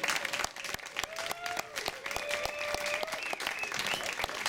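Crowd applauding, a dense patter of many hands clapping, with a few voices calling out over it partway through.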